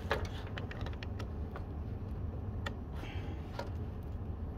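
Scattered small clicks and taps as a laptop hard drive is handled and plugged into a desktop computer, over a steady low hum.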